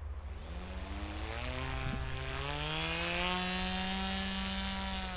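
Electric motor and propeller of a radio-controlled paramotor model (Peer XL ProUltralight) flying past. It makes a buzzing whine that rises in pitch over the first two seconds, is loudest about three seconds in, and dips slightly in pitch near the end.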